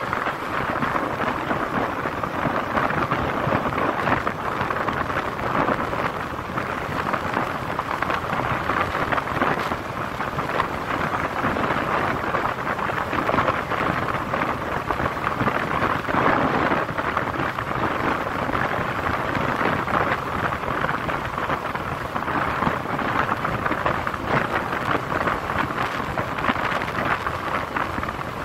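Steady rush of wind buffeting the microphone of a motorcycle ridden at speed, mixed with road and riding noise.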